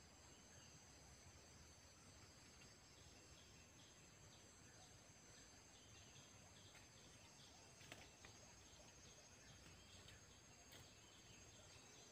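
Near silence: a faint, steady high-pitched insect drone, with faint short high chirps repeating through the middle and a single small click about two-thirds of the way in.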